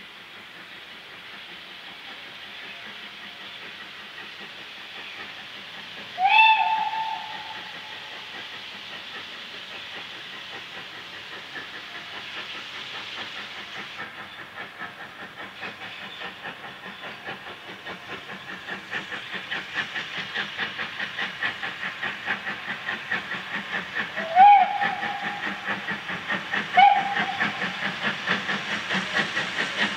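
LMS 4F 0-6-0 steam locomotive sounding one long whistle, then pulling away with its train, its exhaust beats growing steadily louder as it approaches. Two short whistles sound near the end.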